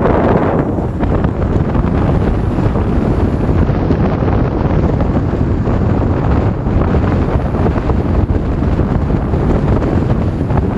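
Steady wind rushing over the microphone on a moving motorcycle, with the bike's running and road noise underneath.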